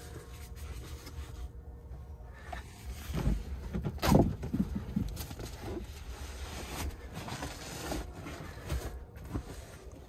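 The third-row fold-up seat of a 1997 Lexus LX 450 being handled and moved: an uneven run of rustles, creaks and knocks, loudest about four seconds in.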